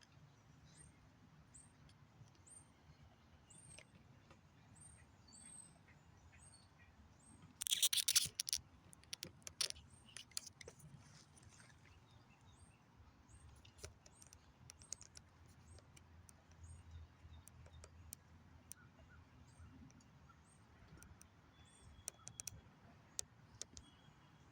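Woodpecker sounds: a short, high call repeated in a steady series, then about eight seconds in a brief loud burst of rapid knocks, followed by scattered single taps.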